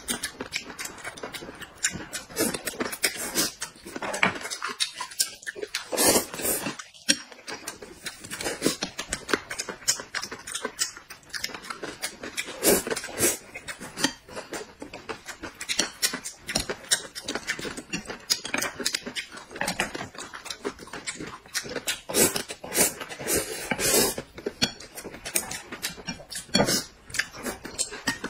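Two people eating: noodles slurped and corn on the cob gnawed off the cob, with a dense, irregular run of wet chewing and smacking sounds.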